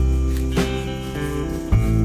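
Instrumental background music with held chords over a strong bass line; a new chord is struck about three-quarters of the way through.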